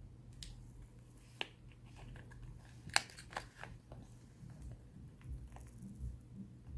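Small sharp clicks and handling noises close to the microphone, bunched together about three seconds in, over a steady low hum.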